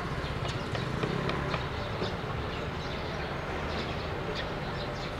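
Footsteps of several people walking on stone paving, light irregular clicks over a steady low background hum.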